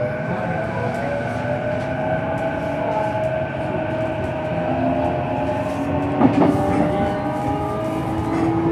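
JR East E233-series electric train heard from inside a motor car while running: the rumble of wheels on rail, with the whine of the VVVF inverter and traction motors as several slowly shifting tones. A sharp clack about six seconds in.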